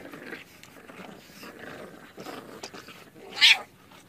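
A dog barks once, short and loud, about three and a half seconds in, after a few fainter sounds.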